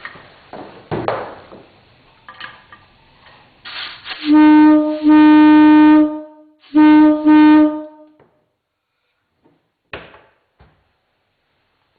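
Antique Westinghouse Air Brake Company locomotive air horn sounding four short blasts in two pairs, each one steady low note, very loud. Handling knocks and rustles come before the blasts.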